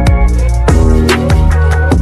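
Background electronic music with a steady drum beat and deep bass.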